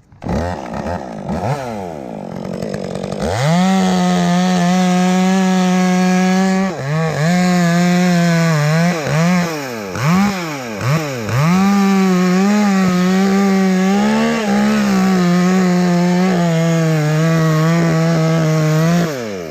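Two-stroke chainsaw cutting maple wood. After a few seconds at lower revs it is held at full throttle, dips and recovers several times as it works through the cut, then runs steadily before dropping off near the end.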